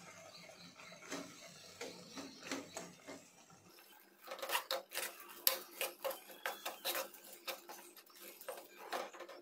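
Steel ladle scraping and knocking against a coated cooking pot while stirring a thick spice paste. About four seconds in, the strokes turn faster and louder, several knocks a second.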